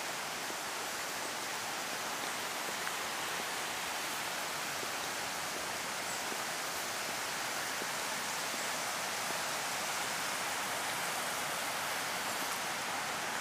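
Steady, even outdoor hiss with no distinct events, such as rain or distant running water gives.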